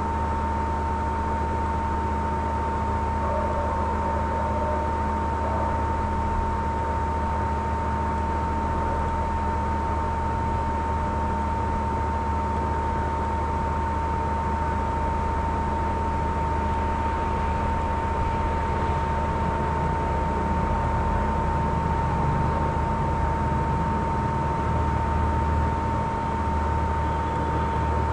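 Steady hiss with a low hum and a constant high-pitched whine, unchanging throughout, with no other events.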